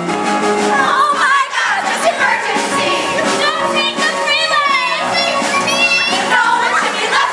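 Stage-musical music with a chorus of young women singing over it, their voices rising high and wavering in the middle.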